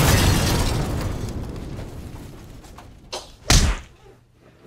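Loud thunder rumbling and fading away over about three seconds, then two sharp thumps about three seconds in.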